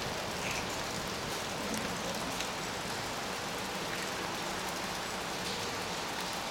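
Steady hiss of rain falling, with the faint low drone of Class 55 Deltic diesel locomotives moving away underneath it.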